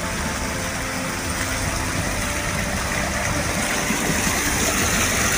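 Shallow mountain creek running over rocks, a steady rush that grows a little louder near the end.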